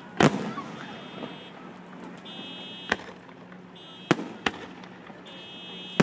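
Fireworks shells bursting: a loud bang just after the start, then single reports about three, four and four and a half seconds in, and another at the end. A high electronic beep repeats about every second and a half underneath.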